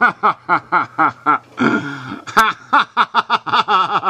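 A man laughing: a long run of rhythmic ha-ha bursts, about five a second, loud and unbroken, with a short drawn-out stretch about two seconds in.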